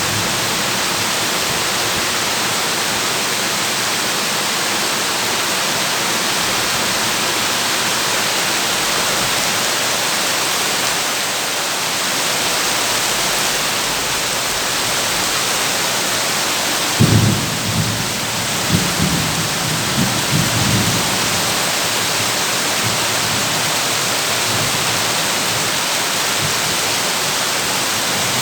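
Heavy rain drumming steadily on a corrugated tin roof as an even hiss. About two-thirds of the way through, a sudden low rumble of thunder breaks in and rolls on in several swells for about four seconds.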